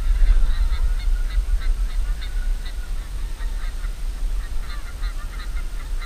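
A flock of geese honking, many short calls repeating several times a second and overlapping, over a steady low rumble.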